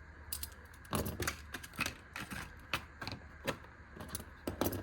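A compact folding multi-tool being worked by hand: its spring-action pliers and folding parts give an irregular string of sharp metal clicks and snaps.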